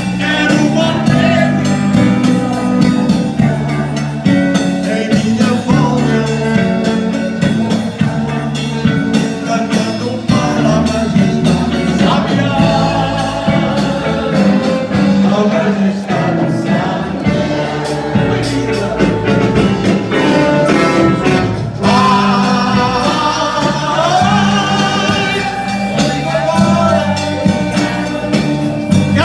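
Live band music with singing: electric guitars, keyboard and drums over a steady beat and moving bass line, backing a male singer on a handheld microphone.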